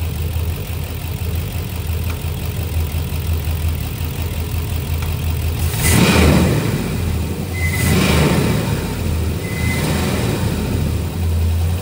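2006 Chevrolet Silverado's 5.3L V8 idling, then revved briefly twice, about halfway through and again two seconds later.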